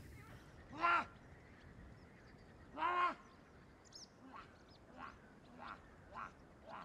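Duck quacking: two loud quacks about two seconds apart, then a run of fainter quacks, with faint chirps of small birds.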